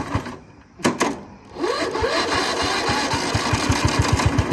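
Riding lawn mower's small engine firing back up: its beat sags, a sharp knock sounds about a second in, then it catches, revs up and runs with a steady, even firing beat.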